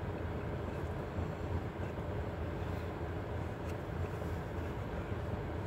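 Steady low rumble in a car cabin, with a few faint clicks.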